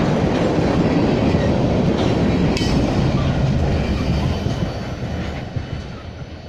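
Empty railroad tank cars and a trailing boxcar of a freight train rolling past, their wheels rumbling on the rails with a sharp click about two and a half seconds in. The sound fades away over the last two seconds as the end of the train goes by.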